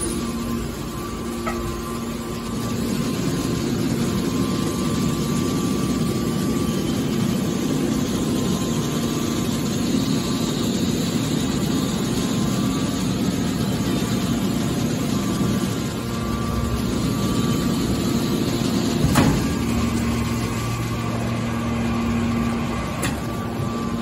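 Hydraulic metal baler's power unit running with a steady hum, and one sharp knock about three-quarters of the way through.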